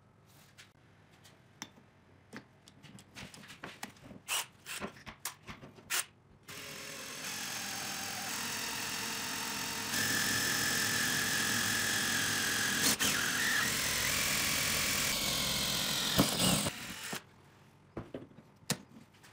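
Handheld electric drill with a twist bit drilling through the top of a square steel tube held in a bar clamp: the motor runs steadily for about ten seconds, louder once the bit is cutting into the steel, then stops. Clicks and knocks come first, and a few more after it stops, as the clamp is handled.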